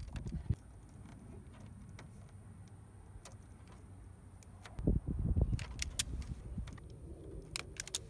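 Small metal clicks and rustling from hands handling wires and a wire cutter and stripper, with a burst of low rumbling handling noise on the microphone about five seconds in.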